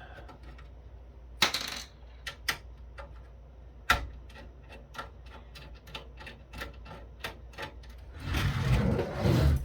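Irregular clicks and taps of a screwdriver and small parts being handled while the KVM switch's faceplate is taken apart, with a longer scraping rustle near the end.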